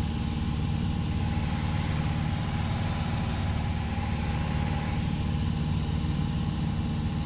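Piper PA28-181 Archer's four-cylinder Lycoming engine and propeller giving a steady, unchanging drone heard inside the cockpit in flight.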